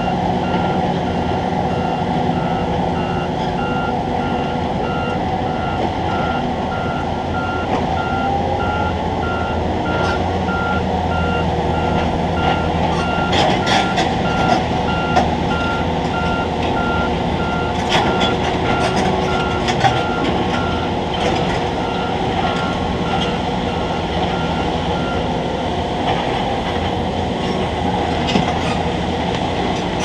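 Crane machinery running with a steady hum while a warning beeper beeps over and over, stopping a few seconds before the end. Several sharp clicks or knocks come in bunches around the middle.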